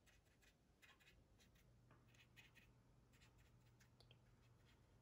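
Very faint soft, scratchy strokes of a dry flat brush rubbing over a plastic scale model's painted surface, blending out an oil-paint wash. A faint low hum comes in about two seconds in.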